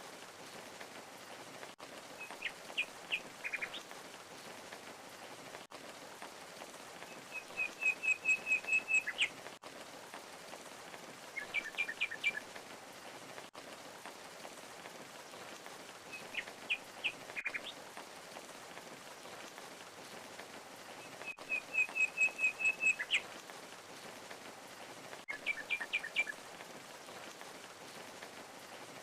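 Steady rush of falling water with a songbird calling every few seconds: short clusters of quick chirps and, twice, a rapid trill of even notes, the same phrases coming round about every fourteen seconds.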